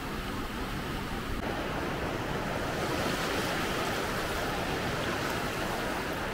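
Small waves breaking in the shallows and surf washing up over a sandy beach, a steady hiss of foam that swells about a second and a half in.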